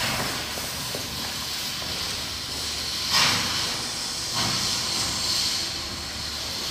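Colored smoke bombs hissing steadily as they vent smoke. The hiss swells sharply about three seconds in and again a little after four seconds as more of the canisters catch and begin pouring smoke.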